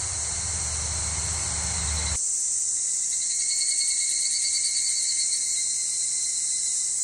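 A steady chorus of insects singing, a high shrill drone, with a faint rhythmic pulsing in its upper tones around the middle. A low rumble underneath stops abruptly about two seconds in.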